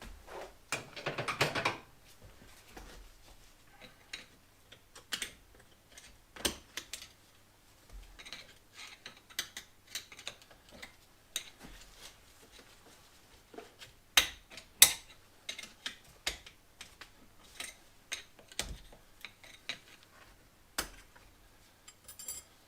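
Metal tools and parts clinking and knocking on a workbench: irregular clicks and clanks with pauses between them, and a short rustle just after the start.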